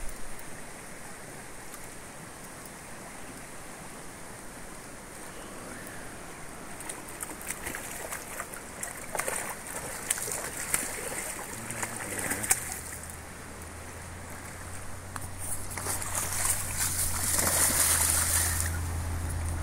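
Hooked coho salmon splashing and thrashing at the surface of a shallow river, over the steady rush of the current. The splashing comes in a run of sharp bursts a third of the way in and a louder, denser spell near the end.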